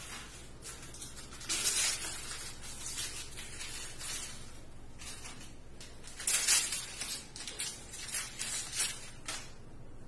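Rustling and scraping as bandage materials are handled at a dog's foreleg, in a string of short bursts. The loudest come about one and a half seconds in and again about six seconds in.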